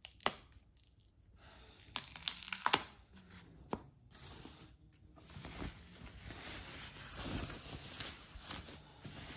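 Thin white protective sheet being torn open and pulled off a cutting machine. A few sharp rips come in the first few seconds, then steady rustling and crinkling as the wrap is drawn back.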